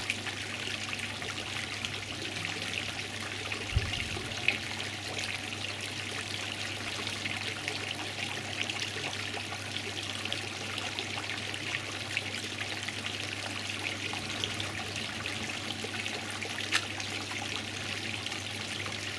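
Steady trickling of running water, with a low steady hum underneath and a few faint clicks.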